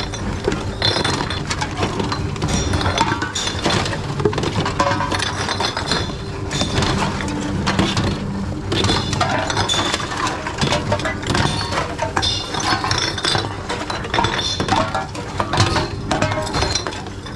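Empty glass bottles and aluminium drink cans clinking and knocking as they are fed one at a time into reverse vending machines. The clinks repeat all through.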